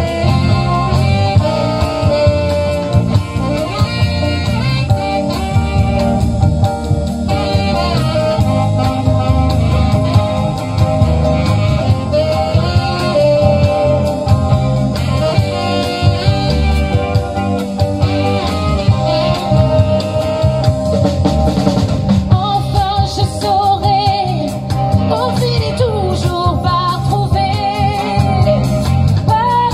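Live band playing a song, a woman singing over drums, guitar and keyboard.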